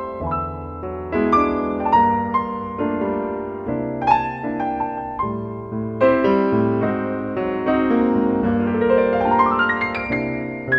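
Background piano music: a melody over held chords, with a quick rising run of notes near the end.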